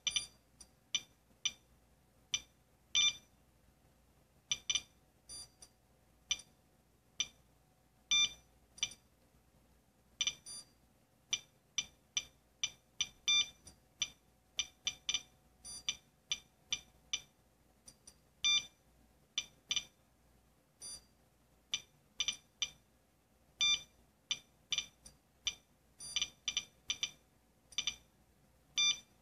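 SOEKS-01 Geiger counter sounding a short, high beep-click for each count, at irregular random spacing of roughly two a second, as it picks up radiation from the smoke detector it is set on.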